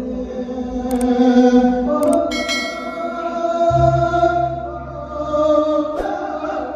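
Thai tet lae, a sung Buddhist sermon: a voice holds long, drawn-out melismatic notes. A low steady bass accompaniment comes in about halfway, with a few sharp clicks.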